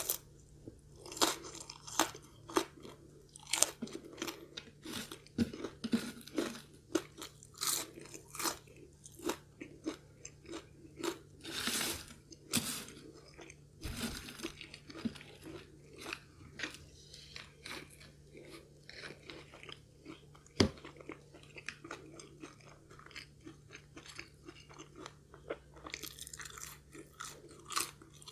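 Close-up crunching and chewing of crispy curly fries: irregular sharp crunches, clustered at times, with quieter chewing between.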